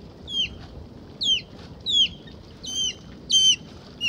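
Osprey calling: a run of about six high whistled chirps, each falling in pitch, coming roughly one and a half a second. The later chirps are doubled.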